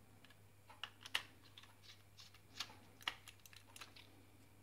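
Small screwdriver clicking against screws and the plastic underside of a Logitech M705 wireless mouse as its screws are driven back in: a string of light, irregular clicks and taps, the sharpest about a second in and again about three seconds in.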